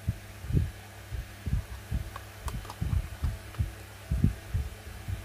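Handling noise from hands moving boxed diecast model cars on a tabletop: irregular dull low thumps, about one or two a second, over a steady low hum, with a few faint light clicks around the middle.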